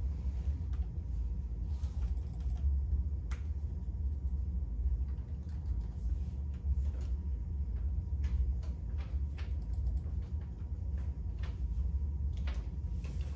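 A steady low hum with irregular light clicks and taps scattered through it, a few every second or two.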